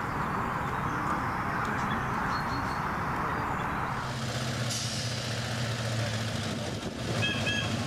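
Steady outdoor hiss, then from about four seconds in the engine hum and rolling of a small open-sided passenger train, with two short beeps near the end.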